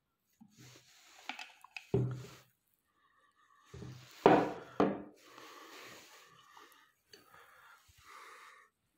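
Handling noise from a metal spin-on fuel filter canister on a tabletop: a soft knock about two seconds in and two sharp knocks about four and a half seconds in as it is set down and moved. Near the end, light rubbing of fingers across the pleated paper filter media.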